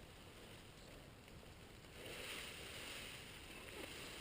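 Faint sloshing and lapping of shallow lake water at the shore's edge, a little louder about halfway through.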